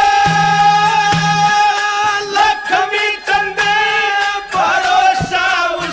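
Haryanvi ragni folk music: a long held melody note, then quick ornamented melodic phrases over regular drum strokes.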